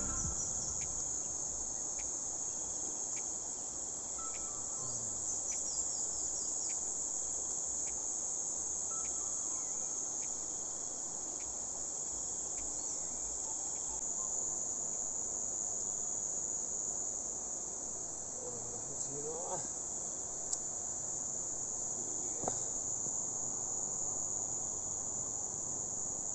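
Steady, high-pitched chirring of insects, over the low, even rush of river water.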